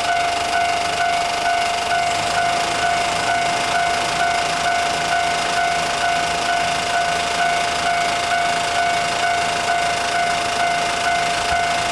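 Japanese level crossing alarm ringing its repeated warning tone, an even pulse of about two rings a second, as a train approaches the crossing.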